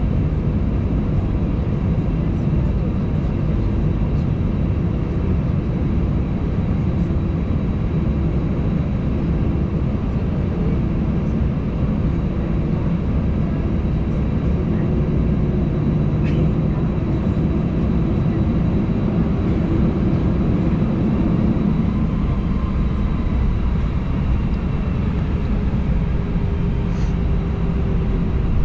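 Cabin noise of an Airbus A320 taxiing: a steady low rumble from the jet engines at idle, with faint steady tones above it.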